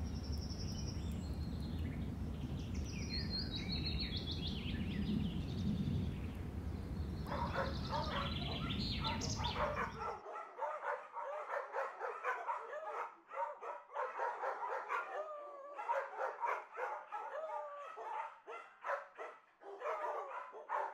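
Outdoor wind rumble with birds chirping. From about seven seconds in, dogs yip and whimper in short, quick calls that bend up and down in pitch, and these calls carry on after the outdoor noise cuts off.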